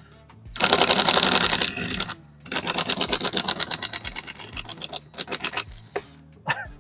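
Handheld power tool running in two bursts of fast, even rattling pulses, the second trailing off about five seconds in.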